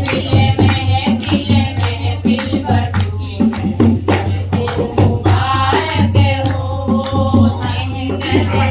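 A Kumauni folk celebration song (badhai geet) sung over steady percussion beats, with a constant low hum underneath.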